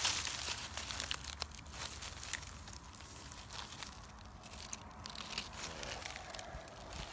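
Dry leaf litter and twigs crackling and rustling close to the microphone as a hand reaches into the forest floor and picks a morel mushroom. The crackling is densest near the start, then thins to scattered small crackles.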